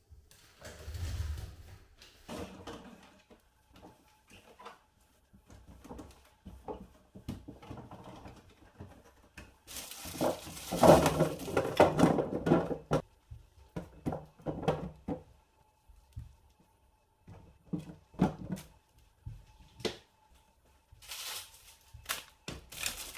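Household handling noises: scattered knocks and clicks of objects being moved and set down, with a louder stretch of rustling and clatter about ten seconds in. A faint steady hum runs through the second half.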